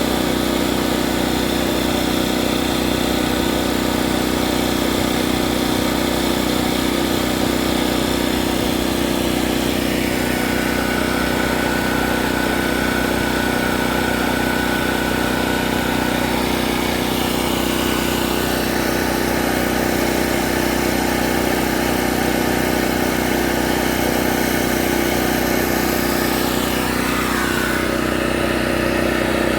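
A motor running steadily at idle, a constant engine-like hum with a quick low pulse. A faint falling whine comes near the end.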